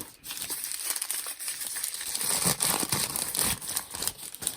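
Crinkly packaging wrap being handled and unwrapped from a crystal: a steady run of crackling and crinkling from about half a second in.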